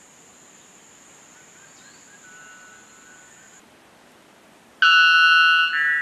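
White bellbird giving its very loud, ringing call about five seconds in. It is one note held for about a second that steps up in pitch at the end.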